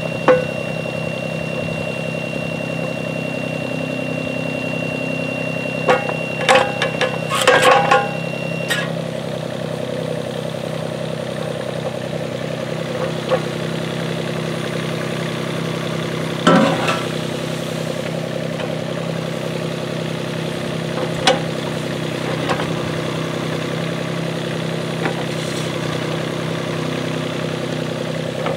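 Yuchai YC15-7 mini excavator's diesel engine running steadily while the hydraulics work the arm, with metal clanks from the bucket and quick coupler in a cluster about six to eight seconds in and again twice later. A steady high beep sounds over the engine and stops about nine seconds in.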